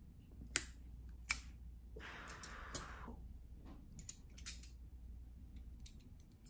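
Metal corkscrew working the cork out of a wine bottle: sharp metallic clicks about half a second and a second and a half in, a rushing scrape lasting about a second, then a few lighter clicks.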